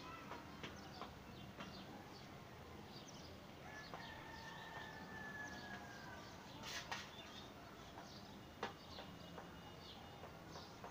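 Faint bird sounds from a poultry yard: many short high chirps throughout, a long held high note about four seconds in, and two sharp clicks later on.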